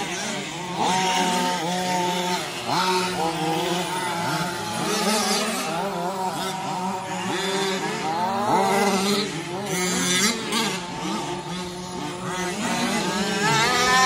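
Several remote-control 4WD race trucks running around a dirt track, their motors rising and falling in pitch over and over as they accelerate and back off, several at once.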